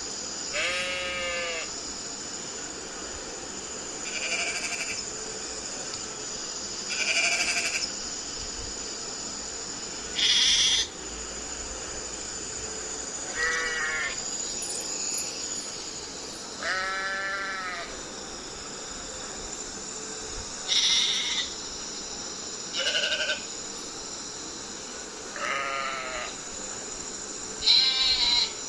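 Sheep bleating again and again, about ten calls each a second or less, spaced every few seconds, several with a quavering wobble in pitch. A steady high hiss runs underneath.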